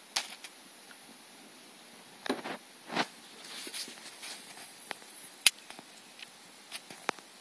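Scattered soft taps, clicks and brief rustles as a boa constrictor works its mouth over a rat on crumbly paper-pulp bedding, with one sharper click about five and a half seconds in.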